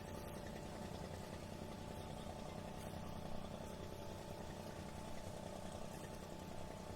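A steady engine hum, idling evenly with a couple of faint held tones above it, over a soft wash of harbour and city background noise.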